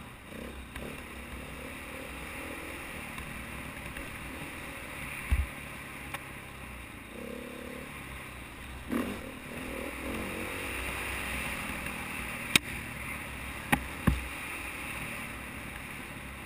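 KTM 450 XC-W dirt bike's single-cylinder four-stroke engine running under way along a trail, under a steady rush of wind noise. Several sharp knocks cut through, the loudest about twelve and a half seconds in, with a pair just after.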